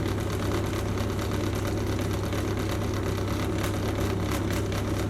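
Oven running with a steady low hum and an even rushing noise, most likely its fan while the kulche brenji bake.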